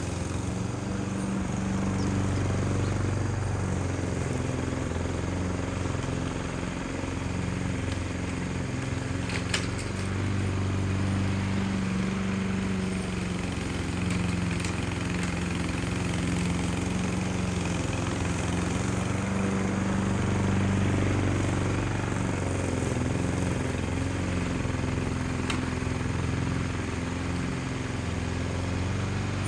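Small petrol engine running steadily, its pitch wavering slightly up and down, with a few faint sharp clicks.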